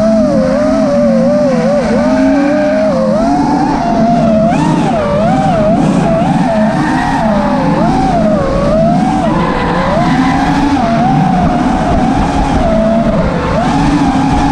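FPV quadcopter's motors and propellers whining, the pitch swinging up and down quickly with every throttle change as it chases a drifting Subaru Impreza. The car's engine and sliding tyres sound beneath it.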